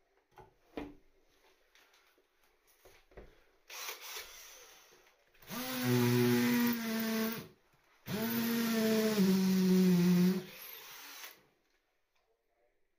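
Cordless drill motor running in two bursts of about two seconds each, the second dropping in pitch partway as it takes load. A few light knocks come before.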